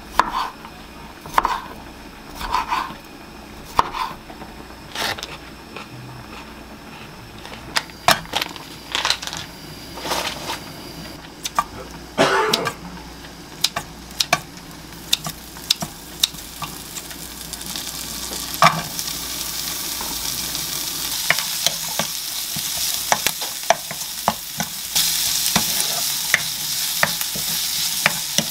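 A knife cutting cherry tomatoes on a wooden cutting board, a stroke about every second, then kitchen scissors snipping duck slices over a nonstick frying pan. From about eighteen seconds in, a sizzle builds as the duck and sliced garlic fry and are stirred with a wooden spatula, loudest near the end.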